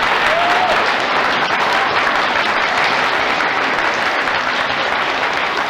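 Audience applauding steadily: many hands clapping, with a brief faint cheer or whoop about half a second in.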